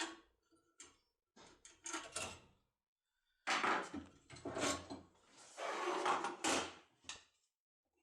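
Cisa 3x3 lever lock being worked with a magic key tool: a run of clicks, then longer rough scraping bursts of the tool and lock mechanism turning.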